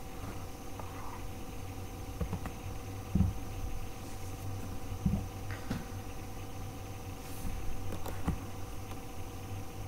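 Steady electrical hum of a running computer, with a few scattered keyboard clicks and soft desk knocks.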